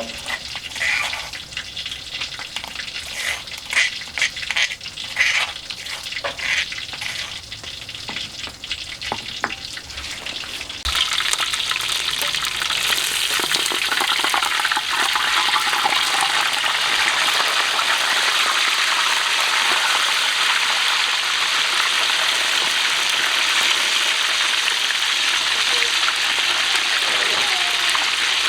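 Scattered clinks and knocks of kitchen handling, then about eleven seconds in a loud steady sizzle starts suddenly: fish frying in hot oil.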